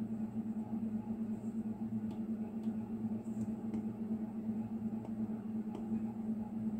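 A steady low hum, with several faint ticks of an Apple Pencil tip touching the iPad's glass screen while brushing.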